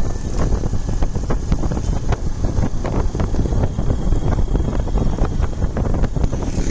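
Wind buffeting the microphone of a moving motorcycle: a steady low rumble with many small knocks and rattles.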